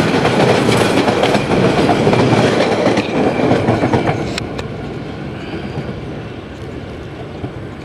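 Bangladesh Railway intercity passenger coaches passing close by, their wheels running on the rails. About four seconds in, the sound drops and fades as the end of the train moves away.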